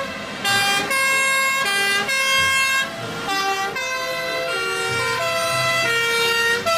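Toy fire truck's electronic sound module playing a siren-like tune: held buzzy notes that step up and down in pitch, a new note every half second or so.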